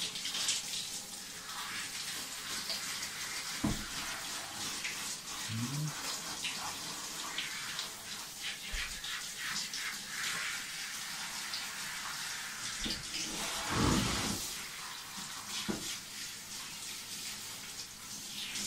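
A handheld shower head spraying water onto a wet dog's coat: a steady hiss of running water that swells for a moment about 14 seconds in.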